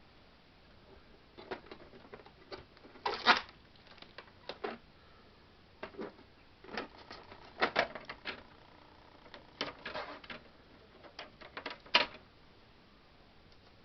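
Irregular clicks, taps and crinkles of plastic packaging being handled and unwrapped, in scattered bursts with quiet gaps between.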